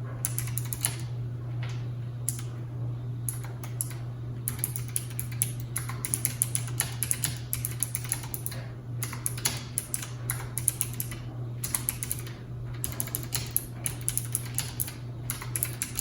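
Fast typing on a Keychron K1 wireless mechanical keyboard with clicky Gateron blue switches, in quick runs of keystrokes broken by short pauses. A steady low hum of background noise lies under the clicking.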